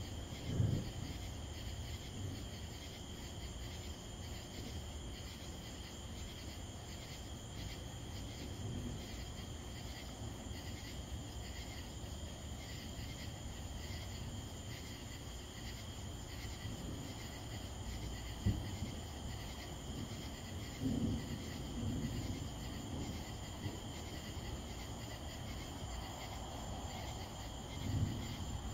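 Night insect chorus: a steady high trill over a low rumble, with a few soft low thumps.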